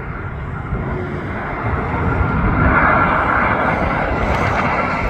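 Airbus A320 jet airliner passing low on landing approach: a broad rushing jet roar that grows louder about two seconds in, with a steady high engine whine over it.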